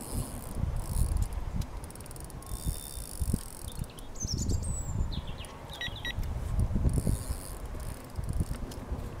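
Fixed-spool fishing reel being wound, a fast mechanical ticking that comes in three spells, over low wind rumble on the microphone.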